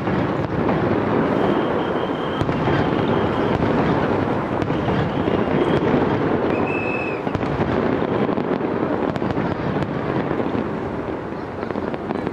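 Aerial fireworks display going off: a continuous barrage of bursts and crackling with no pause.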